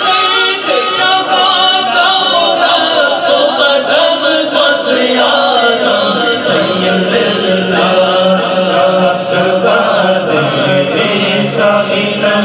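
Male voices singing a naat without instruments: a lead singer on a microphone with other men singing along. A low held note joins about six seconds in.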